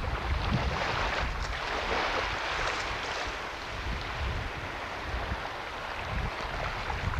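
Small waves breaking and washing up a sandy beach in a steady surf hiss, with wind gusting on the microphone.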